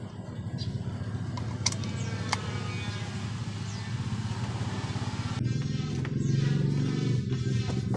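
An engine running steadily with a low drone that grows louder about five seconds in, with a few sharp clicks in the first half.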